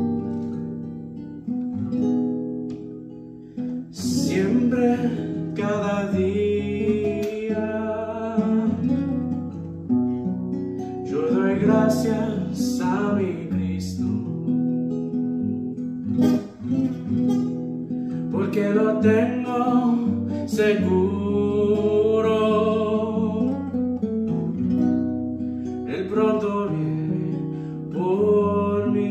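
Acoustic guitar strumming chords, joined about four seconds in by a voice singing in phrases with short pauses between them.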